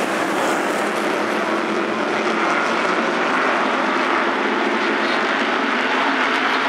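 A field of modified race cars running at race speed, their engines making a loud, steady drone as the pack goes around the track.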